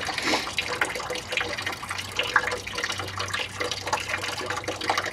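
Engine coolant draining from the radiator drain valve of a 1982 Ford F-150, a steady stream pouring and splashing. The radiator cap is open, so it flows freely rather than dribbling.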